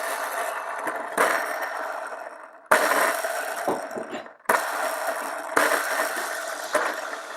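Skateboard wheels rolling over pavement with a rattly grind, in short stretches joined by abrupt cuts.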